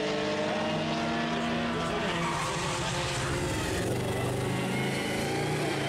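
Engines of classic racing cars running hard, with several engine notes overlapping and some rising and falling in pitch as the cars pass.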